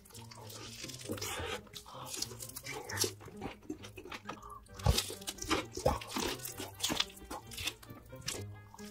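Close-miked crunchy bites and chewing of crispy sauced fried chicken, a run of sharp crackles and crunches, loudest about five and six seconds in.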